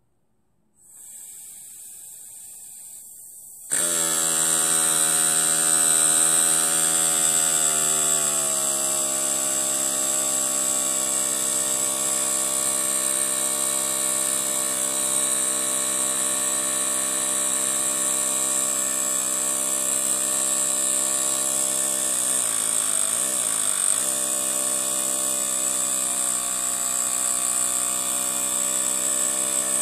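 Miniature brass twin-cylinder steam engine running on compressed air at about 3 to 6 psi. A faint air hiss comes first; about four seconds in the engine starts and runs fast with a steady buzzing whine over a constant hiss, settling a little lower in pitch a few seconds later and wavering briefly later on.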